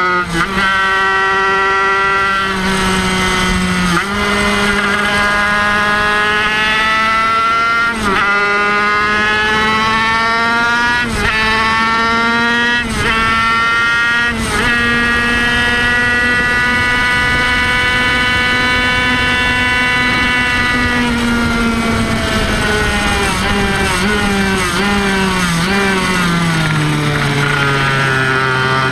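Kreidler Van Veen 50cc racing motorcycle's two-stroke single-cylinder engine running at high revs, with quick upshifts breaking the note briefly every few seconds. It then holds one steady high note for several seconds, and the revs fall steadily near the end as the bike slows for a corner.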